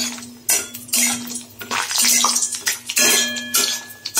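A spatula scraping and stirring in a metal kadai as bori fry in hot oil, with sizzling. It comes in repeated strokes about every half second to a second.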